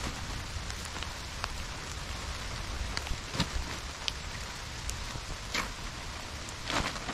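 Heavy rain pouring steadily, with scattered sharp taps of individual drops striking close by, several of them in the second half.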